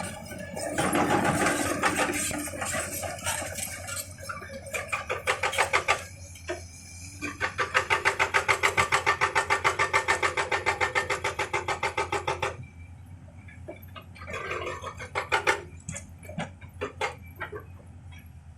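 Excavator-mounted hydraulic breaker hammering in a fast, even rhythm of about four to five blows a second over the engine's running, then stopping about two thirds of the way through, leaving scattered knocks.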